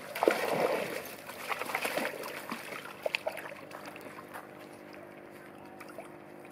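Small terriers splashing into a pond and paddling through the water: a loud splash about a quarter second in, then sloshing and smaller splashes that fade after about two and a half seconds.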